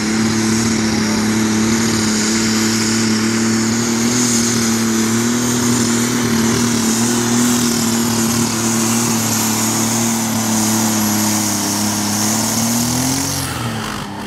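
Limited Super Stock pulling tractor's turbocharged diesel engine at full throttle under load, holding one steady, loud note through the run. It comes off throttle and fades near the end.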